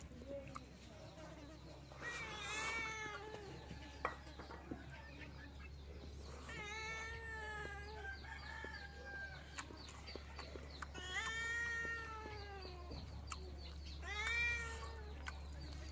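A cat meowing: several drawn-out meows whose pitch rises and falls, a few seconds apart.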